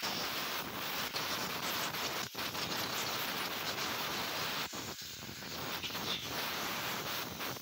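Compressed-air blow gun hissing as it blasts air through the passages of a Honda Unicorn 150 carburettor, driving out the water left from washing it in soapy water. A steady rush of air, broken by two very short gaps a little over two seconds in and near five seconds in.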